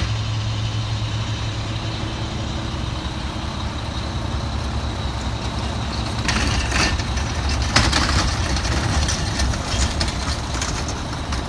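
Mack MR garbage truck's diesel engine idling steadily, with a low hum. From about six seconds in, metal clattering and rattling join it, loudest about eight seconds in.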